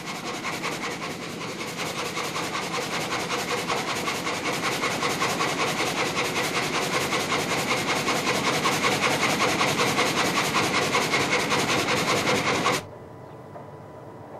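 Sawmill saw cutting through a log: a loud, dense clatter of rapid even strokes, about three or four a second, building slowly. It cuts off abruptly near the end, leaving a quieter steady industrial hum.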